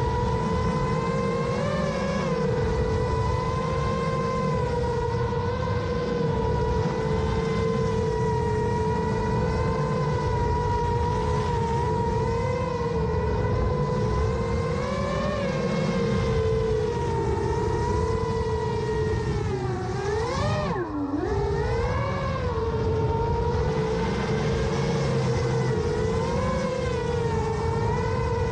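Brushless motors and propellers of a 7-inch FPV quadcopter in flight, a steady whine that wobbles slightly in pitch as the throttle moves. About 20 seconds in, the pitch drops sharply and then swoops back up: a throttle chop followed by a punch-out.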